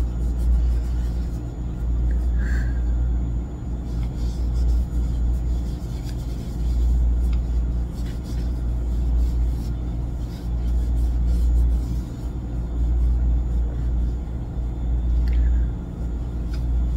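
A continuous low rumble that swells and fades irregularly, with a faint steady hum above it.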